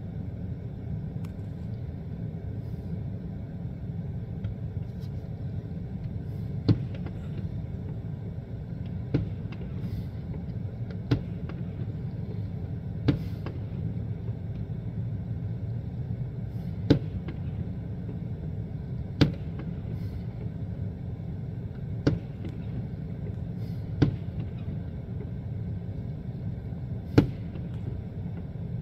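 Fireworks shells bursting one at a time, about nine sharp bangs two to three seconds apart, over a steady low rumble.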